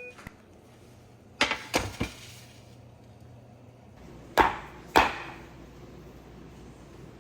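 Five sharp bangs or knocks: three in quick succession, then, a couple of seconds later, two louder ones about half a second apart, each trailing off in a short ringing tail.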